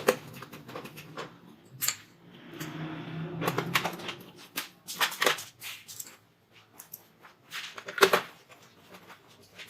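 Screws being driven in to fix a motherboard inside a computer case. Scattered clicks and knocks of the tool and screws, with a stretch of scraping about three seconds in.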